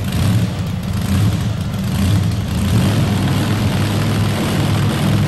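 Pulling truck engine running, a loud, steady low rumble that swells slightly now and then.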